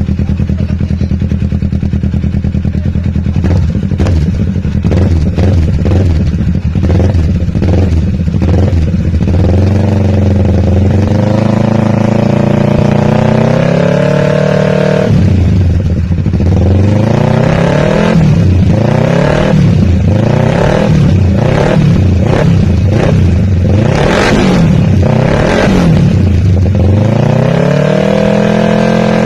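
Kawasaki Ninja 650's parallel-twin engine idling, then revved with the throttle: a run of quick blips, a long rev climbing and held high for several seconds before dropping back, more quick blips, and a rising rev near the end.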